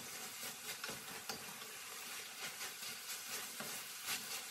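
Ground beef with diced potatoes, carrots and tomato paste sizzling steadily in a stainless steel pan as it is stirred with a wooden spoon, with faint scrapes and taps of the spoon against the pan.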